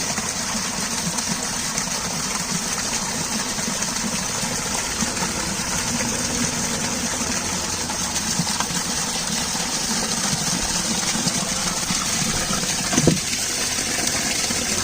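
Steady rushing, water-like noise, with one short knock about thirteen seconds in.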